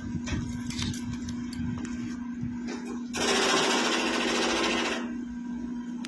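A small motor-driven mechanism gives a rapid, rattling buzz that starts suddenly about three seconds in and stops after about two seconds. It sounds over a steady low hum, with a few light clicks and knocks before it.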